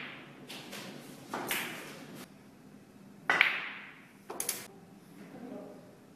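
Several sharp clacks of snooker balls: the cue tip striking the cue ball and balls knocking together, each with a short ringing tail. The loudest clack comes about three and a half seconds in, followed by a quick double click.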